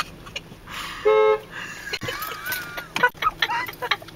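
Car horn giving one short honk about a second in.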